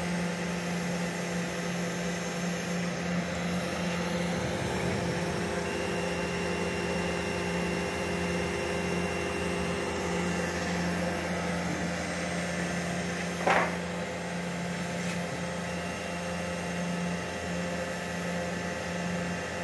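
The spindle motor and stepper drives of a mini five-axis CNC machine run with a steady hum while it carves a wooden blank. About 13 seconds in there is one short, louder burst.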